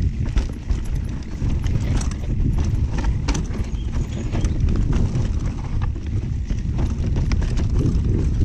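Mountain bike clattering over a rough, rooty trail descent: many sharp clicks and knocks of the chain and frame over a steady low rumble of tyres and wind on the camera microphone.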